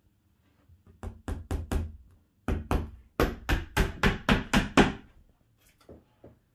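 Hammer driving small nails through a thin fibreboard wardrobe back panel into the carcass edge: four quick taps about a second in, then after a short pause a regular run of about ten harder strikes, roughly four a second.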